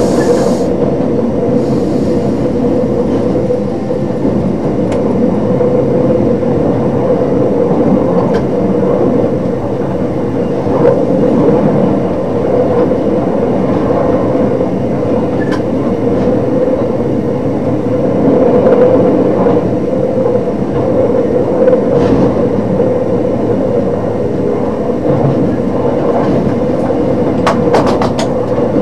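DB Class 628 diesel multiple unit heard from its driver's cab while running along the line: a steady drone of engine and wheels on rail with a constant hum, and a few faint clicks now and then.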